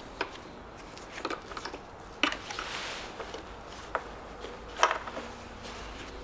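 Scattered sharp clicks and light knocks, the loudest about two and five seconds in, with a brief rustle, from gloved hands unclipping connectors, clips and hoses around an engine's intake manifold.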